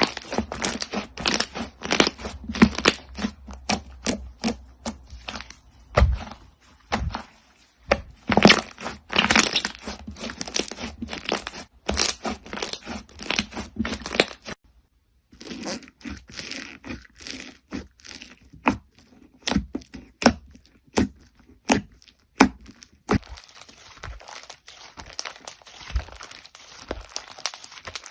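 Crunchy slime being pressed and squeezed, giving dense, irregular crackling and popping. It breaks off for about a second near the middle, then carries on.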